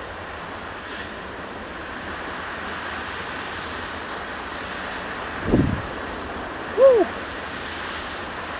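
Steady wind noise on the action camera's microphone. About five and a half seconds in comes a brief low thump, and a second later a short pitched sound that rises and then falls.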